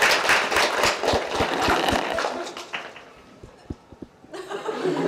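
Small-group applause with dense hand claps, fading out over the first two to three seconds, followed by a brief voice near the end.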